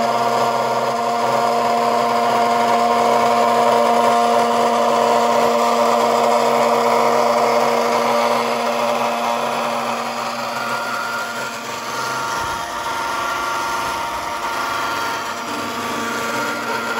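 Twin 775 brushed DC electric motors driving an RC boat's propellers, running steadily with a motor whine over a hiss. The sound starts suddenly and eases a little about halfway through.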